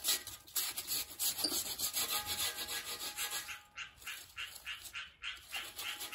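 Charcoal crackling and popping as it catches in a chimney starter: a dense, irregular run of small crackles, several a second.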